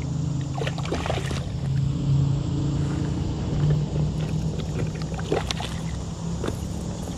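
A hooked pickerel thrashing and splashing at the water's surface beside the boat. There is a burst of splashing about a second in and two shorter splashes near the end, over a steady low hum.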